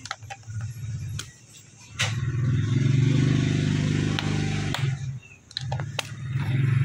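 A motorcycle engine running steadily nearby, getting much louder about two seconds in, briefly easing near the five-second mark, then picking up again. Scattered light clicks and scraping come from a utility knife scoring a plastic body panel.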